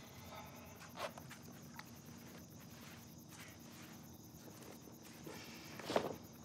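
Quiet night-time poolside ambience with faint insect chirping, broken by a few soft knocks and movement sounds of someone getting up and stepping on the pool deck. The loudest is a single knock about six seconds in.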